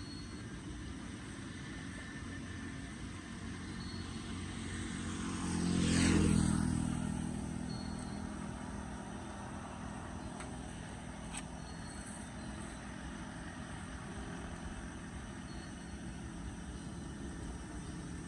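A car passes along the wet road, the hiss of its tyres and its engine swelling to a peak about six seconds in and then fading away, over a steady background hiss.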